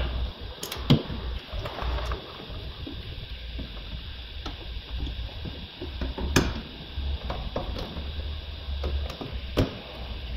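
Scattered knocks and clicks of hands working inside the rear door of a VW Polo 9N3 with its trim panel off, parts knocking against the bare metal door frame. The sharpest knocks come about a second in, again past halfway, and near the end.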